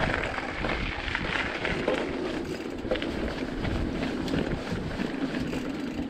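Mountain bike tyres rolling over a gravel trail, with many small clicks and rattles from stones and the bike, under wind noise on the GoPro's microphone.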